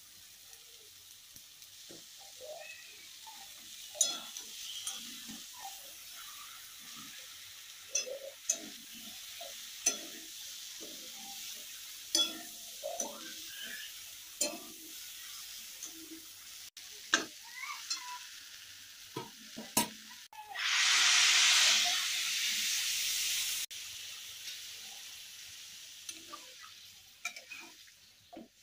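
Spatula stirring chickpeas in masala gravy in a steel kadai, with a steady sizzle and sharp knocks of the spatula against the pan about every two seconds. A loud hiss lasts about three seconds a little past two-thirds of the way through.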